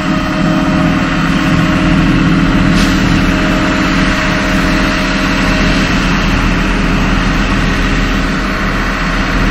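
Heavy truck engine running steadily with a low, even hum.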